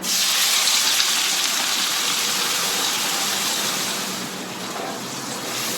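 Wet blended spice paste hitting hot cooking oil in a wok: a loud sizzle that starts suddenly and eases a little after about four seconds.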